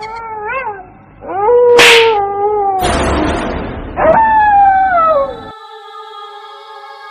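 Canine howling: a short wavering howl, then two long howls that slide down in pitch, with a harsh noisy burst between them. A steady electronic music chord takes over a little past the middle.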